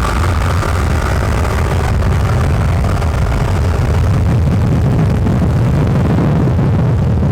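Car engine running hard at full throttle in a roll race from about 40 mph: a deep, steady rumble that grows a little louder, with rushing road and wind noise over it.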